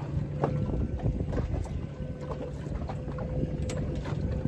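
Choppy water slapping irregularly against the hull of a small fishing boat, with wind buffeting the microphone and a faint steady hum underneath.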